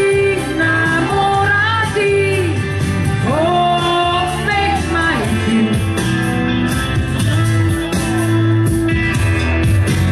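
Live pop-rock band with drums and electric guitar playing behind a woman's singing voice. The voice holds and slides through long wordless notes in the first half, and the band carries on under it.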